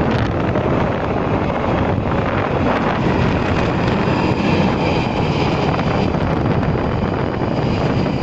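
London Underground Northern line 1995 Stock train arriving at a deep-level platform: a loud steady rumble of wheels on the rails and rushing air, with a faint high whine joining a few seconds in.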